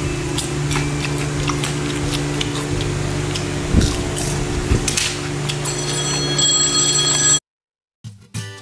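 Steady low electrical hum of room background with scattered faint clicks. Near the end a high ringing tone sounds for about two seconds and cuts off. After a short silence, acoustic guitar music begins.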